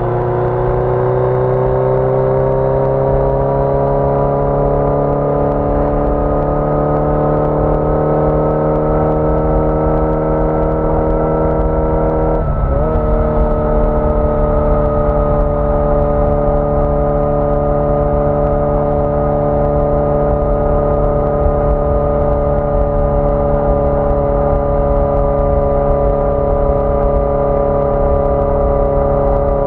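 1981 Yamaha XJ650 Maxim's air-cooled inline-four engine under way, its pitch climbing slowly as it pulls for about twelve seconds. There is then a brief dip and a drop in pitch, as in an upshift, after which it runs at a steady, slowly falling pitch.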